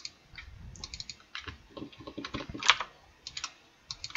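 Typing on a computer keyboard: irregular keystrokes, loudest in a quick run of keys about two and a half seconds in.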